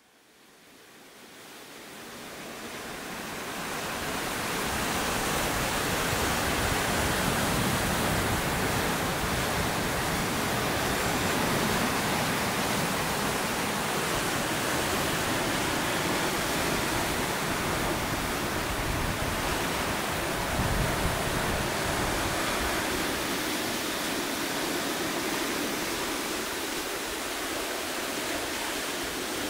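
Ocean surf breaking and washing over rocky ledges, a steady roar of water that fades in over the first few seconds and then holds even.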